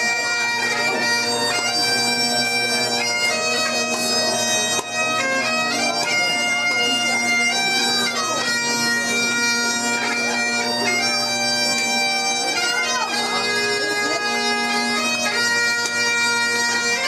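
Highland bagpipes playing a tune: the chanter melody moves from note to note over the steady drones.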